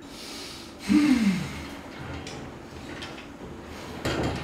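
Wooden glass-paned door opened with a short creak about a second in, its pitch rising and then falling, followed by light clicks and knocks as it is handled and pushed shut.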